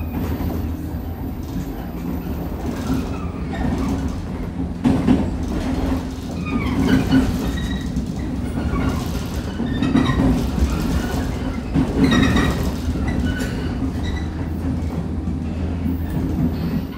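JR 105 series electric multiple unit accelerating, heard from inside the carriage: a steady hum of the traction motors and running gear over a low rumble, with the wheels knocking over rail joints several times.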